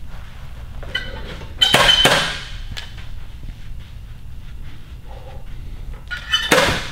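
Two thrown balls hitting their target in a pitching drill, about five seconds apart. Each is a sharp hit that fades over about half a second.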